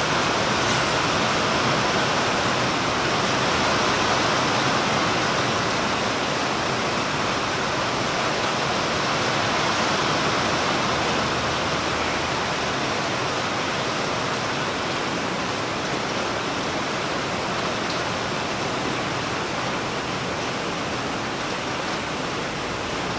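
Steady rain falling, an even hiss that eases slightly toward the end.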